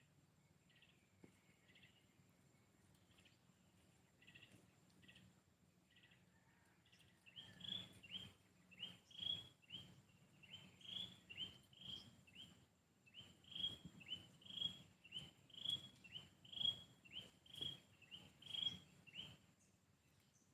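A bird calling: scattered faint chirps, then about seven seconds in a steady run of short, clear chirps, roughly two a second for about twelve seconds, stopping shortly before the end.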